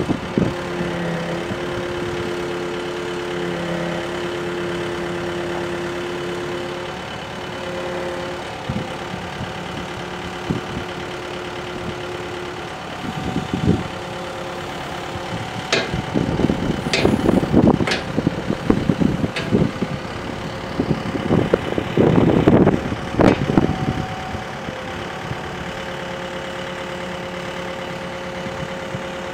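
Hitachi EX75US-5 excavator's diesel engine running steadily while the boom, arm and bucket are worked, with a steady hydraulic whine. From about halfway through, a spell of rapid clanks and rattles lasts several seconds and is the loudest part.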